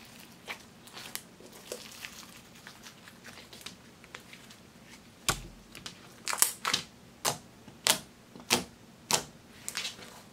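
Glossy black glitter slime worked by hand: faint sticky crackles as it is stretched and twisted, then a soft thump about halfway through as it lands on the table, followed by a run of sharp pops roughly every half second as fingers press into it and squeeze out trapped air.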